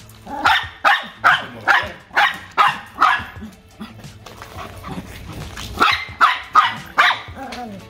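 Young Rottweiler barking in quick bursts while chasing a flirt-pole lure in play: a run of about seven barks, a pause, then about four more near the end.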